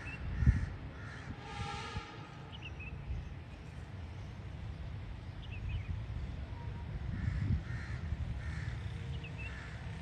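A crow cawing: one clear caw about a second and a half in, with fainter caws later, and a few short high chirps from small birds. A low thump about half a second in, over a steady low rumble.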